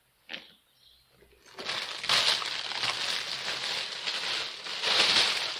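Close rustling and crinkling of handled material, starting about one and a half seconds in and running on steadily.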